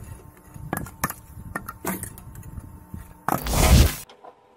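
Wood splitter working on logs: scattered wooden knocks and clatter, then one loud burst, under a second long, about three seconds in.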